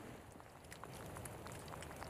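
Faint outdoor ambience in a snowy desert: a steady low rumble with scattered small ticks and taps.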